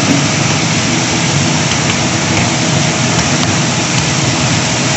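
Chapli kebabs sizzling steadily in a large, wide pan of hot oil, with a low steady hum underneath.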